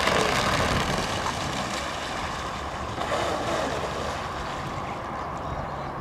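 Delta Force Vortex 34 radio-controlled electric speedboat coming off the throttle: its motor whine fades in the first second or two, leaving the hull's wash and splashing over wind noise on the microphone.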